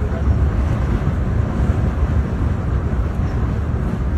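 Wind buffeting the microphone: a steady, loud low rumble with no words.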